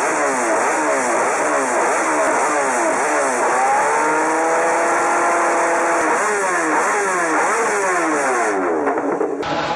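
MotoGP race motorcycle engine at high revs, its pitch climbing and dropping again and again as it shifts rapidly through the gears, holding a steadier note for a couple of seconds in the middle. The sound changes abruptly near the end.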